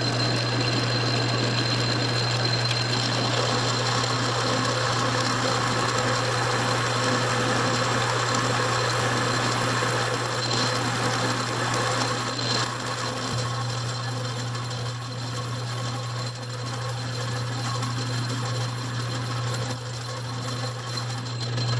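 Metal lathe running with a steady motor hum while a boring bar cuts the bore of a metal adapter plate. From about halfway the cutting grows rougher and more uneven, with a thin high whine over it.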